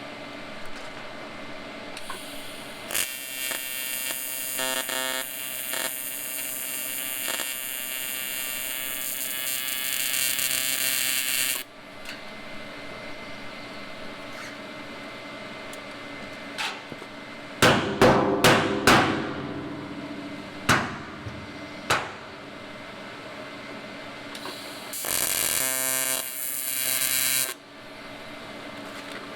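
AC TIG welding arc on aluminum buzzing steadily for about eight seconds, then again briefly near the end, over a steady machine hum. Between the two runs come a quick cluster of sharp knocks and two single knocks.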